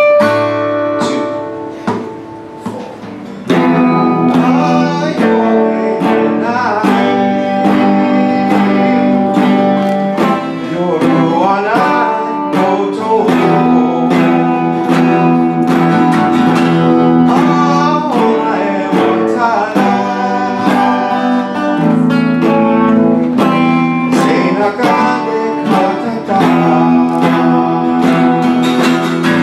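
Electric guitar and strummed acoustic guitar playing a rock song together, with a man singing over them in Japanese. The playing is softer for the first three and a half seconds, then comes back in at full strength.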